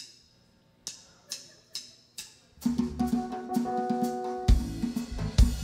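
Live band starting a song: a few evenly spaced sharp clicks, then about two and a half seconds in the drum kit, bass and held chords come in together, with heavy bass drum hits near the end.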